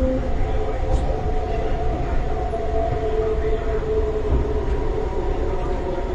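MTR East Rail line R-Train electric multiple unit heard from inside a car as it slows along a platform. Its traction motors give several whining tones that slowly fall in pitch over a steady rumble of wheels on rail.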